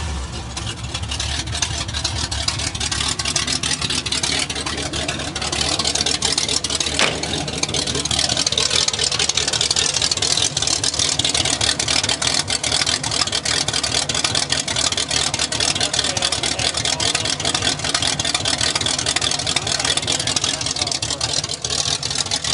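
Pontiac 389 V8 idling with a choppy idle through headers whose collectors cross over into a smaller-diameter pipe; the owner thinks the idle sounds like a Ram Air IV cam. It gets a little louder about five seconds in and then runs steadily.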